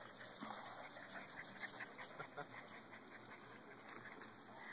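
Bernese mountain dog puppies panting softly, with scattered faint clicks and rustles as they scramble about.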